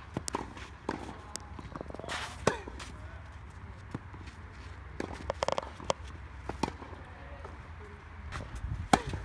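Tennis balls struck by racquets in a rally on a clay court: sharp pops every second or two, the loudest about two and a half seconds in, with fainter hits from neighbouring courts.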